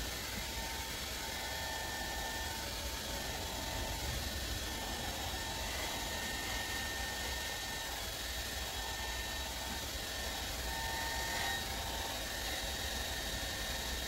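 Hand-held hair dryer running steadily: an even rush of air over a low hum.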